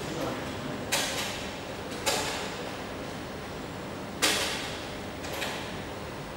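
Willita WLD-530 industrial inkjet printer's ink system drawing ink during start-up: four sharp clicks at irregular intervals, each followed by a brief hiss, over a steady background noise.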